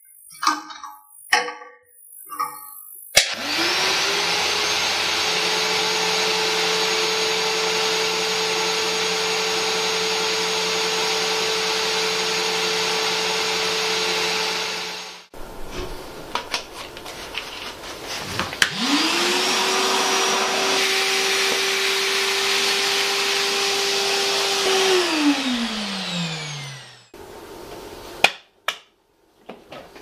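Stomer wet/dry shop vacuum: a few knocks of its tubes being handled, then the motor starts about three seconds in and runs with a steady whine until it cuts off. It starts again to pick up spilled water from the floor, then is switched off and winds down with a falling whine.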